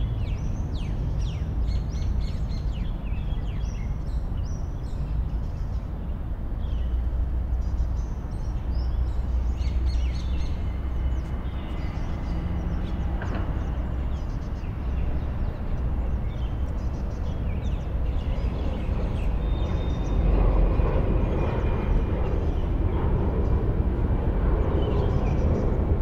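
Small birds chirping and twittering, with many short high calls, over a steady low rumble of outdoor background noise; the rumble grows louder about twenty seconds in.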